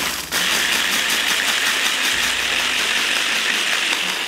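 Electric hand blender with a mini chopper attachment running steadily, chopping rosemary and flaky salt into herb salt, and starting to wind down at the very end.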